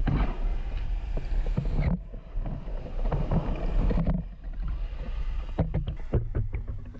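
Muffled underwater rumble and rushing water picked up by a camera in its underwater housing as a hooked fish is reeled up, cutting abruptly in places. A run of sharp clicks and knocks comes near the end.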